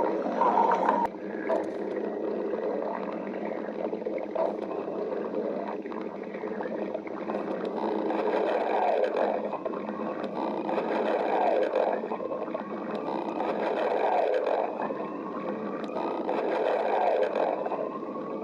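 Stomach growling up close: a continuous gurgling rumble that swells and fades in waves, with a thin whine rising slowly in pitch through the second half.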